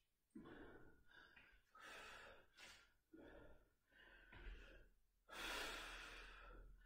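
A woman breathing hard from exertion: a run of short, faint breaths with gaps between them, then a longer, louder breath about five seconds in.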